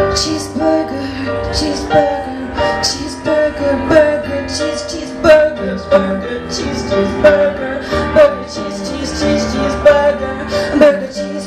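A woman singing over electronic keyboard chords, holding her notes with vibrato.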